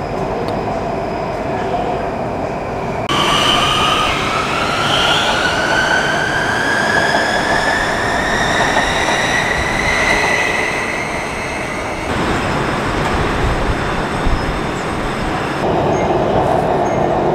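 BTS EMU-A2 electric metro train running, heard from aboard, with rumbling track noise under a steady whine. About three seconds in, a motor whine starts rising steadily in pitch as the train gathers speed. It cuts off about twelve seconds in, leaving only the rumble, and the steady whine comes back near the end.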